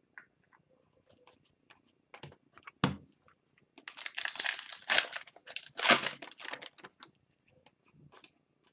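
Foil wrapper of an Upper Deck hockey card pack being torn open and crinkled by hand: a dense crackling from about four to seven seconds in. Before it come a few light clicks of cards being handled and one sharp knock.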